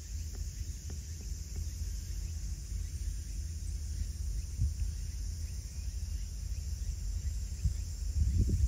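Seaside evening ambience: a steady high shrill of insects over a low, uneven rumble that swells near the end.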